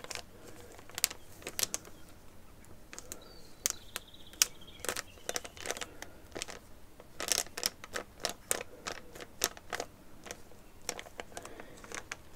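Sharp taps and clicks on Pokémon trading cards, coming in quick irregular runs with short pauses between them.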